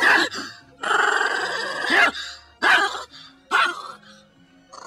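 Small Chihuahua-type dog barking and snarling: a sharp bark at the start, then a long drawn-out snarl, then two short barks.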